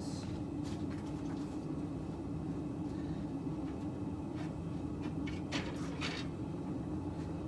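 A steady low drone of shop equipment, with a few light metal clinks and knocks as pieces of steel stock are handled, the loudest cluster about five to six seconds in.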